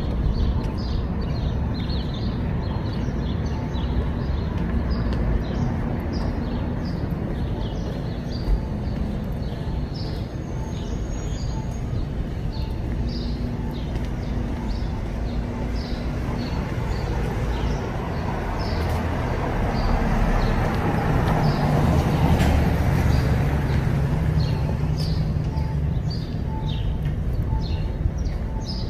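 Street ambience: a steady traffic rumble, with a vehicle passing louder about twenty seconds in, and birds chirping throughout. A faint short beep repeats about once a second from about ten seconds in.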